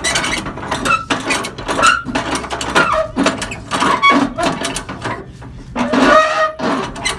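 A flatbed strap winch being worked with a winch bar: a run of irregular metallic clicks and clanks, the winch's pawl clicking over as it turns, with some clanks ringing briefly.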